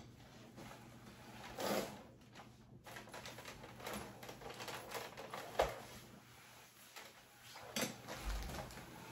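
Items being handled and moved about: rustling and shuffling with a few knocks and clunks, the sharpest about two, five and a half and eight seconds in.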